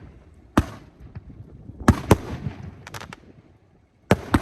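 Fireworks going off: loud sharp booms of shells and cake reports, each trailing off in a low rumble. A single boom about half a second in, two close together near two seconds, a quick run of smaller pops around three seconds, and two more booms near the end.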